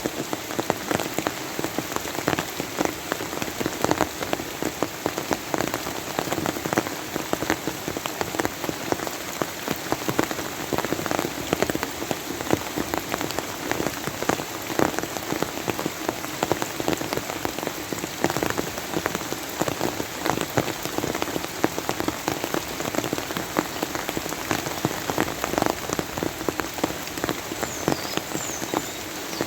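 Steady rain falling on a surface, a dense patter of individual drops.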